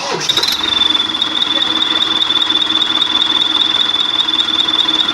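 Turbo-sound whistle fitted to an engine's exhaust, giving a loud, steady, high-pitched whistle over the running engine. It rises slightly in the first second, then holds one pitch.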